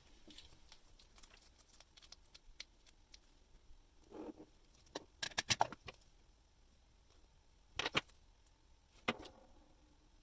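Small, sharp metallic clicks and taps of watchmaker's tweezers and tools handling tiny watch movement parts. A soft thud and a quick run of clicks come about halfway through, then two single sharper clicks later on.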